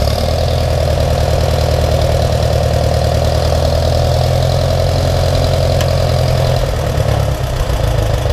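Old tractor's gasoline engine idling steadily, freshly started after its DC generator rebuild.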